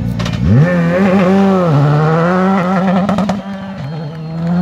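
Škoda Fabia R5 rally car's engine revving hard under acceleration. The pitch climbs steeply about half a second in and then drops in steps with gear changes around the middle and near the end, with a few sharp clicks.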